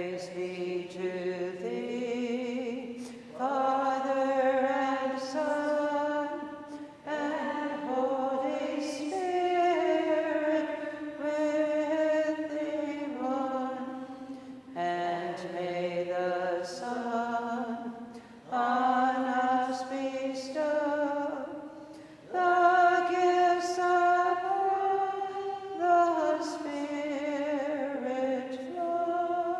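Benedictine sisters singing a Vespers hymn to the Holy Spirit, unaccompanied women's voices. The phrases last a few seconds each, with held notes and brief breaths between them.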